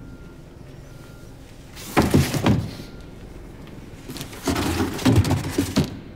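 Cardboard parcels being shoved and shuffled in a wooden bin: two spells of scraping and thumping, about two seconds in and again from about four and a half seconds.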